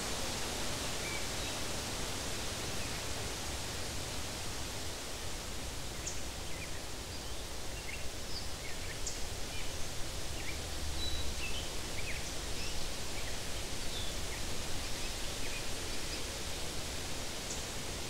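Wind blowing through meadow grass and tree leaves: a steady rustling hiss over a low rumble. A few faint, short bird chirps come through from about a third of the way in.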